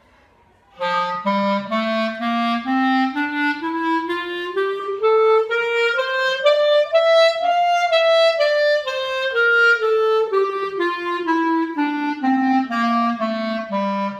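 Soprano clarinet playing a two-octave G major scale, one note after another. It starts about a second in, climbs to the top note near the middle, then comes back down to the bottom note at the end.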